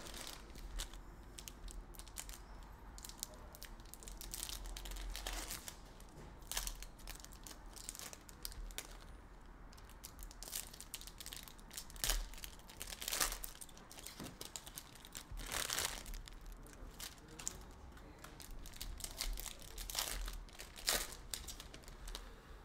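Foil wrappers of 2022 Panini Prizm football card packs crinkling and tearing as the packs are ripped open and the cards pulled out. It comes as a string of irregular crackles and rustles.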